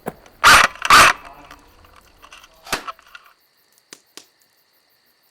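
Two loud airsoft gunshots or BB hits about half a second apart, followed by a few fainter clicks.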